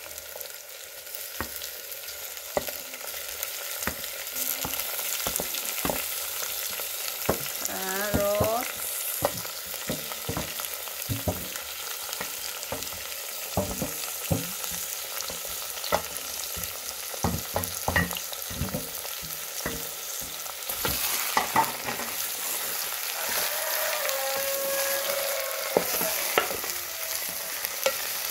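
Oil and onions sizzling in a metal saucepan as chopped tomatoes, grated carrot and greens are scraped in from a metal tray with a wooden spoon and stirred. Many sharp clicks and knocks of the spoon against the tray and pan run through the frying hiss.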